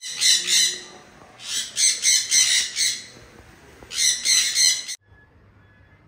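Sun conures screeching: loud, high-pitched squawks in three bursts, cutting off sharply about five seconds in.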